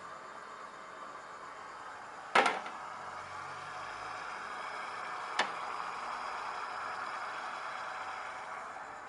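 A stainless-steel bowl clanks down into a steamer, ringing briefly, and a second, sharper click follows about three seconds later, over the steady hiss of the steamer.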